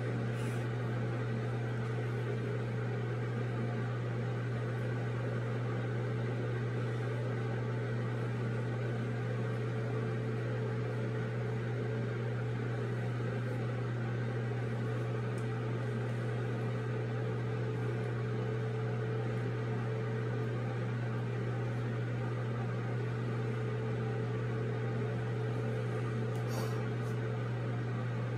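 A steady, unchanging low hum with a faint hiss over it, with a faint click near the end.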